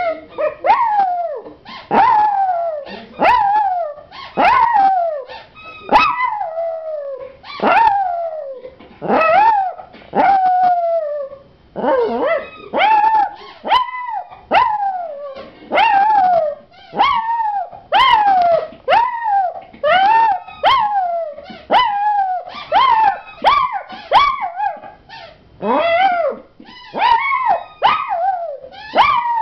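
A puppy howling over and over in a long string of short howls, about one a second. Each starts sharply and slides down in pitch, and a few are drawn out longer.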